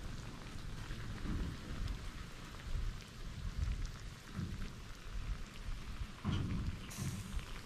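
Steady sizzling and crackling of snails grilling in their shells over charcoal, with a low, uneven rumble underneath.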